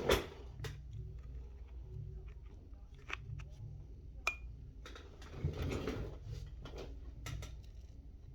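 Scattered light clicks and scrapes of a thin metal prying tool working at the edge of an iPhone screen, over a low steady hum.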